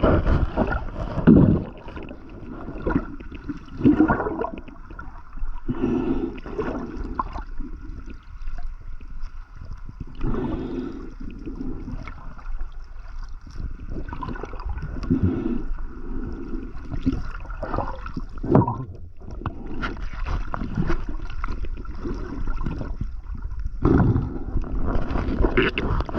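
Muffled underwater water noise with gurgling, coming in irregular surges every few seconds.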